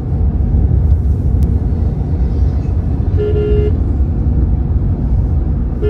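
Steady low road rumble of a moving car, with a vehicle horn honking once, briefly, a little after three seconds in.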